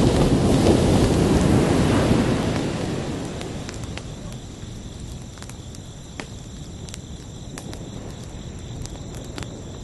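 Ocean waves: one wave breaks loudly at the start and washes out over the next few seconds, leaving a lower wash of surf. Crickets chirp steadily throughout, high above the surf.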